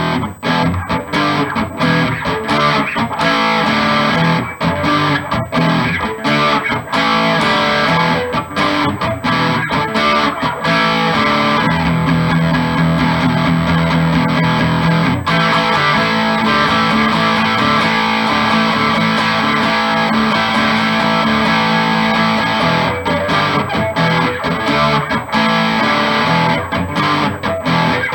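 Electric guitar, a G&L Legacy Tribute on its bridge-position Seymour Duncan Little '59 mini humbucker with the volume knob on 10, played through an amp. Short, choppy strummed chords give way about twelve seconds in to long chords left to ring out, then the choppy strumming comes back near the end.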